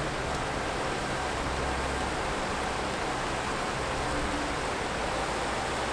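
Mountain river rushing over a rocky bed, a steady even sound of running water.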